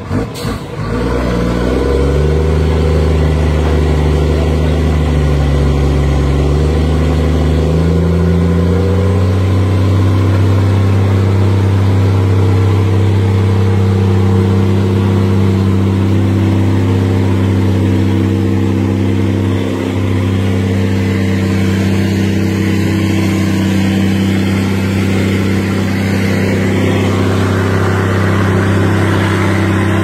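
Heavy logging truck's diesel engine working hard as the loaded truck pulls through deep mud; the revs climb over the first several seconds, then hold steady and high.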